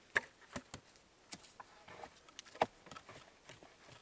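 Wooden shelter poles knocking and clicking as they are pushed and set in place against a lashed pole frame. The sound comes as scattered light knocks, with the two loudest just after the start and a little past halfway.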